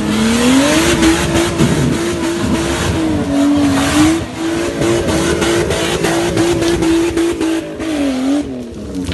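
Off-road 4x4's engine revving hard under load on a muddy climb. The revs rise over the first second, hold high with small dips, and drop near the end, over a steady hiss and many sharp clicks from tyres churning mud and stones.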